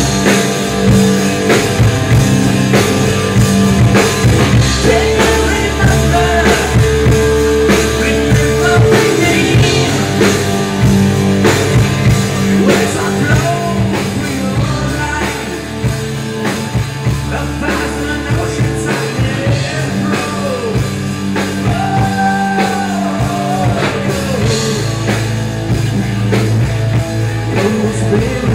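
Live rock band playing: a man sings into a microphone over electric guitars and a drum kit.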